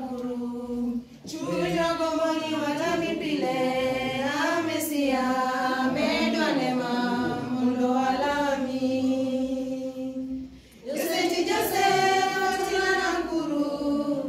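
Church choir of women and men singing unaccompanied, pausing briefly between phrases about a second in and again near eleven seconds.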